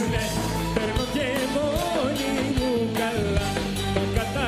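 Live band playing a song: a man sings lead vocals into a microphone over a steady drum beat, electric guitar and keyboard.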